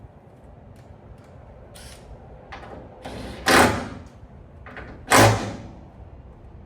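Two loud thuds about a second and a half apart, each dying away over about half a second, after a few lighter knocks and handling noises.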